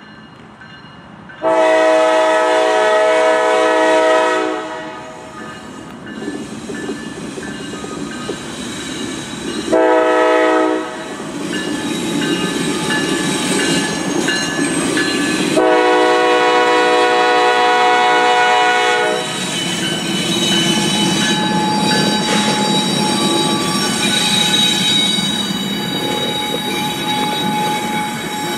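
CSX GE diesel locomotives sounding their air horn three times at a grade crossing: a long blast, a short one, then a long one. After that the locomotives' engines run and their wheels clack over the rails as they pass.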